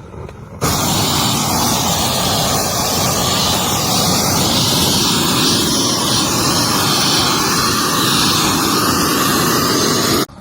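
Propane weed burner torch burning at high output: a loud, steady rushing noise of gas and flame that starts abruptly about half a second in and cuts off just before the end.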